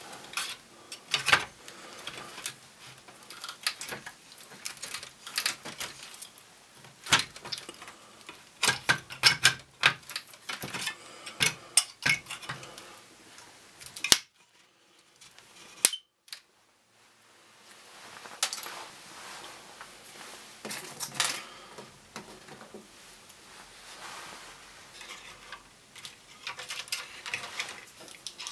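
Irregular clicks, taps and clatters of small hard objects and tools being handled, with a short near-silent break about halfway.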